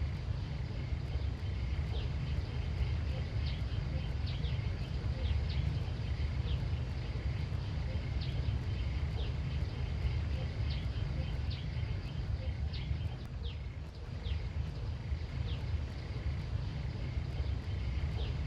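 Outdoor countryside ambience: a steady low rumble, with many short, high chirps scattered throughout and a faint steady high tone.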